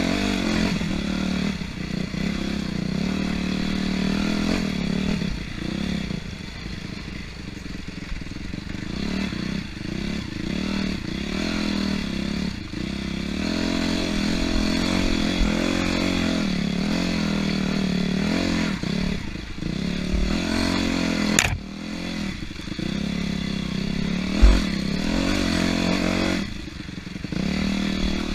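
250-class dirt bike engine revving up and down as it is ridden off-road, with clatter from the bike. A sharp knock about 21 seconds in and a low thump about three seconds later.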